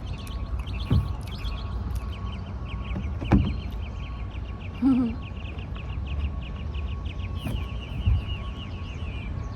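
A songbird's rapid trill of evenly spaced high notes, running about seven seconds, over a steady low rumble. A few short sharp knocks sound during it.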